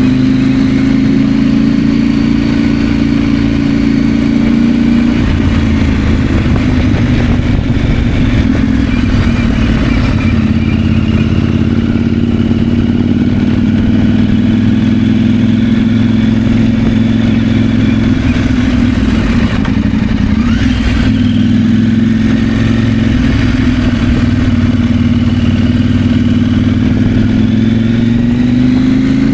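KTM 890 Adventure's parallel-twin engine running steadily under way. The engine note changes about five seconds in and rises in pitch near the end.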